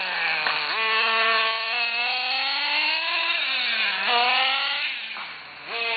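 Small two-stroke engine of a gas-powered RC car revving up and down as it drives, its pitch rising and falling. It eases off briefly near the end, then picks up again.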